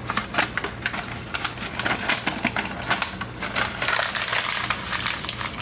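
Paper being pulled out and handled, giving a dense, irregular run of small crackles and clicks.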